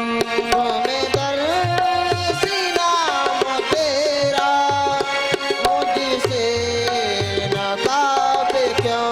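Instrumental interlude of a devotional Hindi bhajan: hand drums keep an even rhythm under a sustained melody line that bends up and down in pitch.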